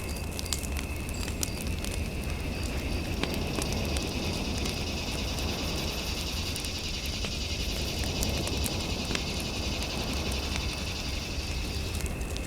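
Fireplace fire crackling with scattered small pops over a steady low rumble and a constant faint high tone. From about three seconds in until near the end, a rapid high trill joins.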